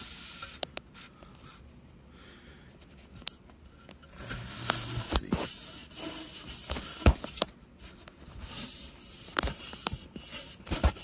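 A towel damped with isopropyl alcohol wiped along a sanded fiberglass rocket body tube to clear the fiberglass dust: rubbing hiss in two stretches, with several sharp knocks and clicks from handling, the loudest about seven seconds in.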